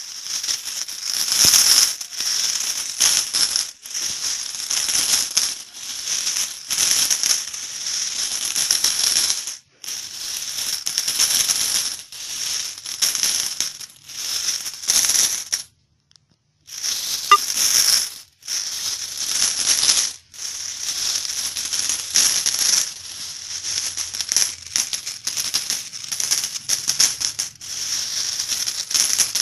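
Loose metal coins shaken and jingling, a bright, high clinking in repeated shakes of a second or two each, with short breaks about ten and sixteen seconds in.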